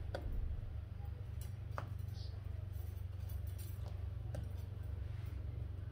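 Tarot cards handled and shuffled by hand, with scattered light clicks and metallic clinks from bangle bracelets, over a steady low rumble.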